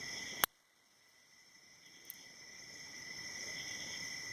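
Crickets chirring steadily in the background. About half a second in there is a sharp click, the sound drops out entirely, and the chirring fades back in over the next second and a half.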